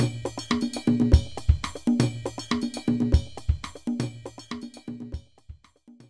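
Title theme music: a drum and percussion rhythm with a steady beat that fades out in its last second or so and stops just before the end.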